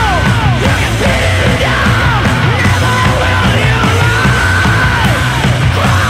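Loud rock music with yelled vocals over a dense, steady low end.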